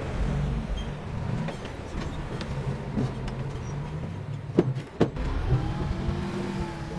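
Heavy diesel construction machinery running, with two sharp metallic clanks about a second apart past the middle and a steady whine joining near the end.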